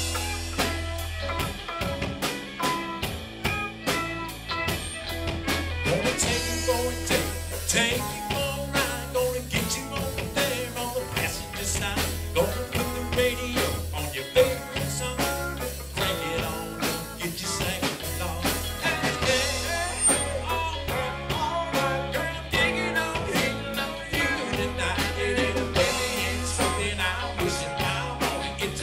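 Live country band playing: electric guitars, fiddle, bass guitar and drum kit with a steady beat.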